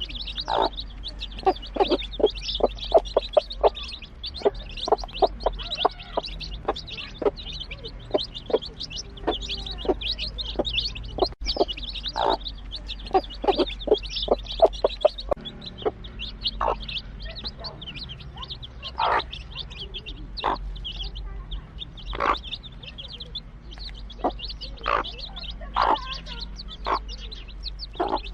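A flock of chicks peeping constantly in high, thin chirps, while a mother hen clucks in short, quick clucks, many in a row early on and more spaced out later.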